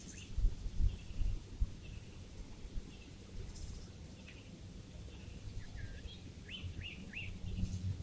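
Small birds chirping outdoors with scattered short high calls, including three quick downward chirps in a row about two-thirds of the way in. Low dull thumps, louder than the birds, come during the first two seconds.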